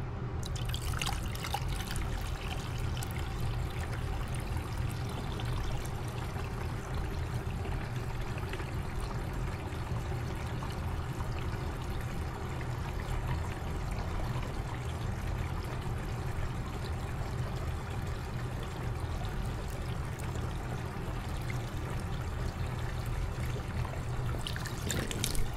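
Water poured steadily into a humidifier's tank while the unit keeps running, starting about half a second in, over a low steady hum.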